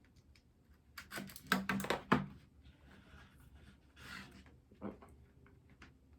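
A package being opened by hand: a quick cluster of clicks and knocks, then two short rustling, sliding sounds and a single knock.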